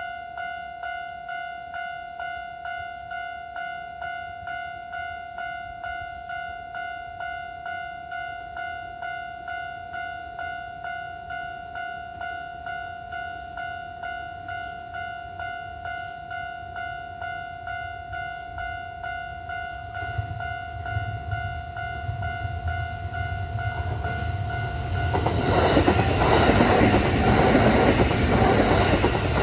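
Japanese level-crossing bell ringing in a steady, even repeat of about two strokes a second. From about 20 seconds in, a Kintetsu electric train set (9820 series coupled to 1252 series) approaches, and from about 25 seconds it passes loudly over the crossing with wheel and rail noise that drowns the bell.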